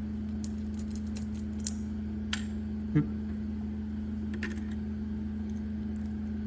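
Scattered light clicks and taps from handling the head unit's plastic and metal parts, over a steady low hum.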